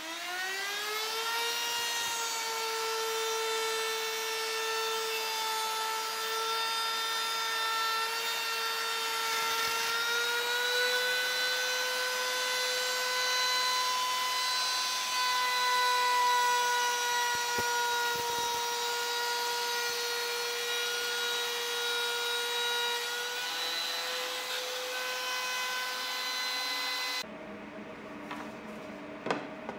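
Electric plunge router spinning up, its whine rising in the first second, then running at a steady high-pitched whine with a slight rise in pitch about ten seconds in. The whine cuts off abruptly near the end, leaving quieter handling sounds and a sharp knock.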